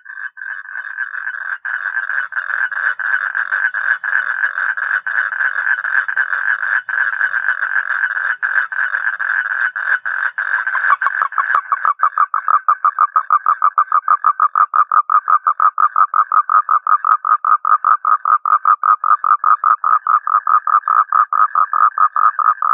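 Toads trilling: a continuous high-pitched trill for about the first half, which changes around halfway into a slightly lower trill of distinct rapid pulses.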